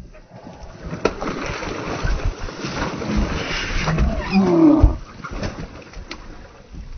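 Bull shark thrashing at the side of a boat: water splashing and knocks against the hull build to their loudest about four to five seconds in, with a brief pitched cry near the peak, then die down.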